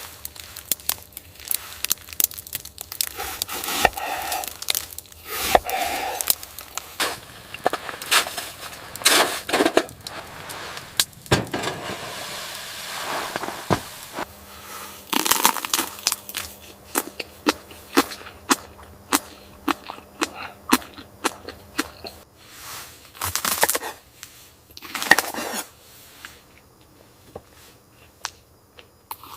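Irregular sharp cracks and snaps, dozens of them, some close together and some spaced out, with rustling noise between.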